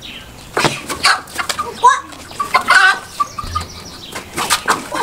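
A chicken flapping its wings and squawking in irregular bursts as it is chased and grabbed at, starting about half a second in.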